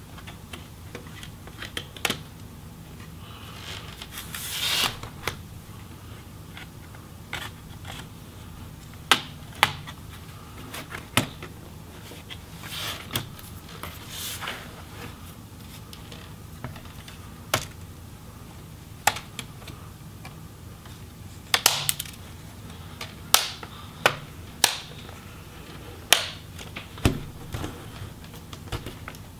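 Plastic snap clips of a Lenovo ThinkPad T470's bottom case popping loose as a pry tool works along the seam with the palm rest: scattered sharp clicks and snaps, irregularly spaced, with a few short scraping sounds of the tool in the seam.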